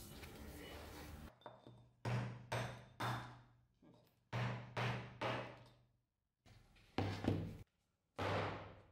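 Restored butcher cleaver-axe chopping into pine blocks on a wooden workbench: sharp chops in quick groups of two or three, about half a second apart, each dying away quickly.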